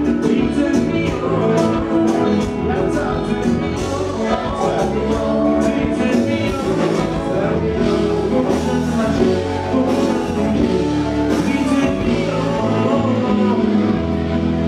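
Dance music with singing over a steady bass line and drum beat.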